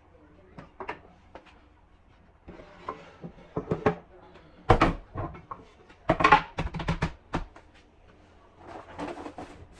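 Household clatter: a string of knocks and bangs from things being handled, like cupboard doors and objects being moved, loudest in the middle.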